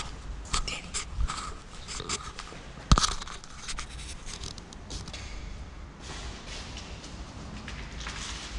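Footsteps and scuffs on a debris-strewn floor with camera handling noise, and a sharp knock about three seconds in. From about six seconds on there is a steady rustling hiss.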